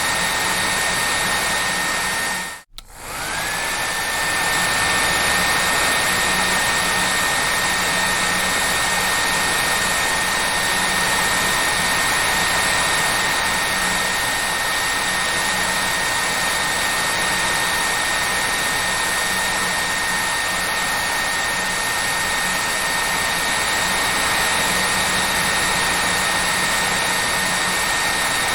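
Hair dryer running steadily: a rushing airflow with a thin high whine. About two and a half seconds in, it cuts out for a moment and comes back, its whine rising back up to pitch over about a second.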